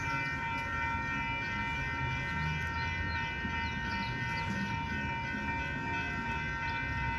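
Metra commuter train's diesel locomotive running close by: a steady low engine rumble under a constant high whine of several pitches.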